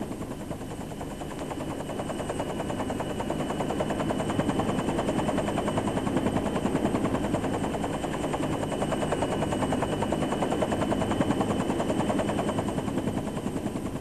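Helicopter in flight: the rapid, steady beat of its rotor blades.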